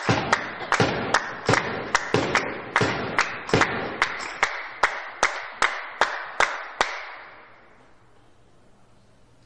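Spectators clapping together in a steady beat, about two and a half claps a second, echoing in a sports hall. The clapping stops about seven seconds in, leaving only low room hum.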